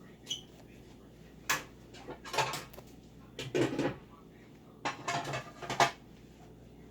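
Objects being handled by hand: short clicks and clatters in several small clusters, the loudest near the end.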